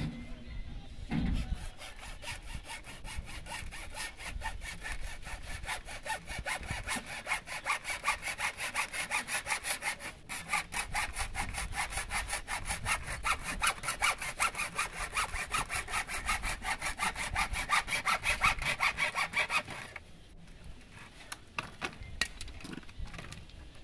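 Hacksaw cutting through a length of grey PVC drain pipe with steady back-and-forth strokes. There is a brief pause about ten seconds in, and the sawing stops about twenty seconds in.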